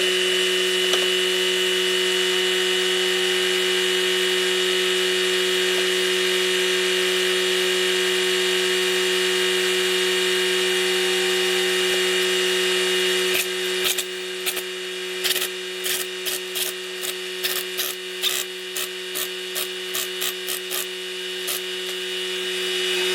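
A power tool runs with a steady whine while tractor tires are changed. About halfway through it drops in level, and a string of irregular clicks and knocks sounds over the whine.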